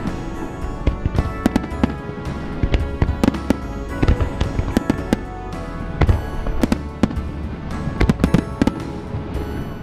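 Aerial firework shells bursting one after another, many sharp bangs coming in clusters, over background music with sustained tones.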